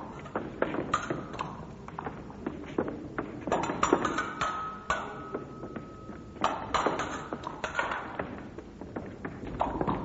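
Fencing blades clashing in quick, irregular exchanges: many sharp metallic clicks and rings, one ringing on for about a second near the middle, with occasional thuds.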